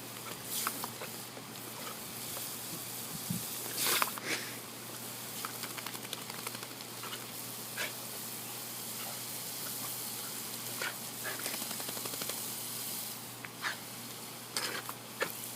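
Steady hiss of running or spraying water, broken by irregular short splashes and snaps from a dog playing in it, the loudest about four seconds in.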